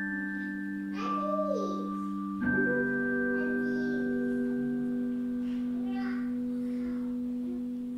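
Instrumental music: sustained keyboard chords, with one held chord giving way to another about two and a half seconds in.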